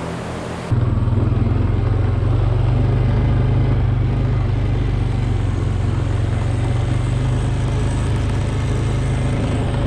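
ATV (four-wheeler) engine running steadily as the quad is ridden along at an even speed. It cuts in suddenly less than a second in, replacing a steady barn ventilation fan hum.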